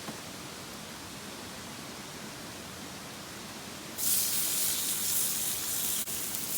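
A steady low hiss, then about four seconds in a sudden, much louder sizzle as pork is laid in a hot iron frying pan and starts to fry.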